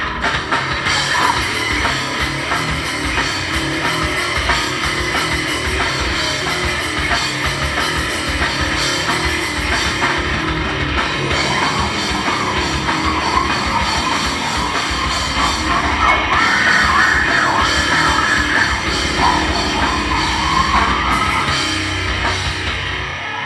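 Live heavy rock band playing loud: electric guitar, bass guitar and a fast-hit drum kit, with a vocalist singing into a microphone. The music cuts off right at the end.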